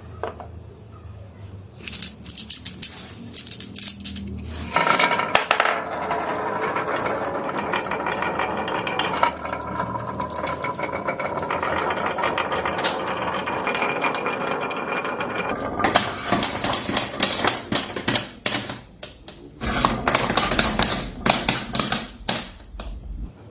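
Marbles rolling and clattering down a wooden HABA marble run. First come scattered clicks, then a long steady rolling rattle full of clicks, and near the end quick bursts of clicking and rattling.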